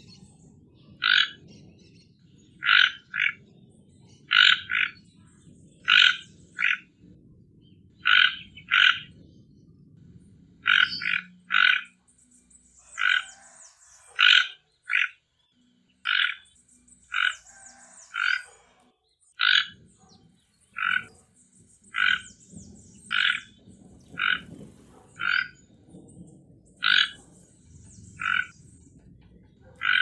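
Toco toucan calling: short, hoarse, croaking calls, often in quick pairs, repeated every second or two.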